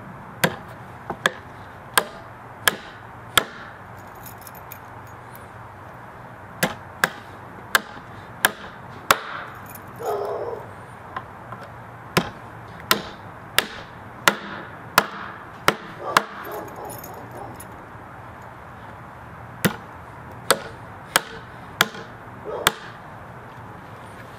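Martinez M1 titanium framing hammer with a 15-ounce steel head driving nails into a weathered wooden beam: four runs of five to seven sharp blows, about one and a half a second, with short pauses between nails.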